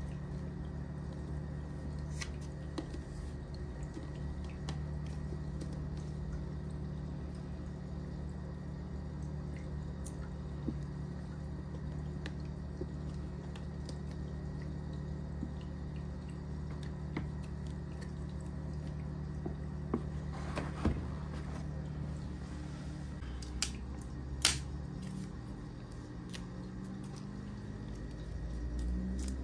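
Handling of a MacBook Air's paperboard retail box and its cardboard shipping carton: light scattered taps, scrapes and rubs as the box is lifted out and turned, the loudest about 20 and 24 seconds in, over a steady low hum.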